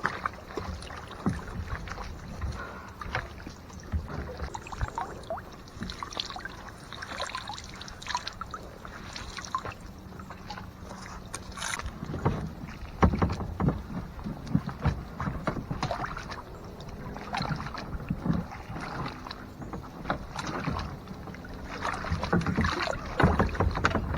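Kayak on the water: paddle strokes with irregular splashing and dripping, and light knocks against the kayak hull.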